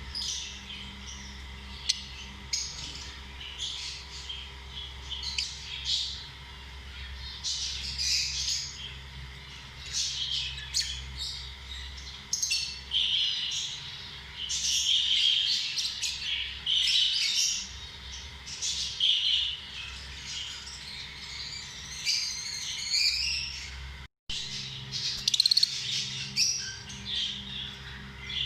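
Lovebirds chirping and squawking: many short, shrill calls overlapping in a continuous chatter.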